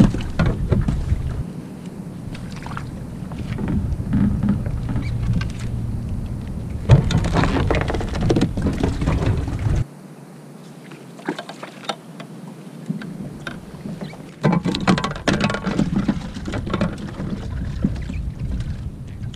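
Wind rumbling on the microphone and water against the kayak, with scattered knocks and rattles as fishing gear is handled and small bait fish are brought aboard. The wind rumble drops away sharply about halfway through.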